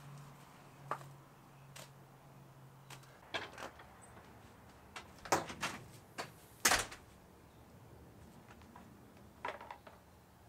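Scattered clanks and knocks of painting gear being handled and set down (a paint tray, a metal paint can and a metal mixing paddle), the loudest about two-thirds of the way in. A low steady hum runs under the first third and then stops.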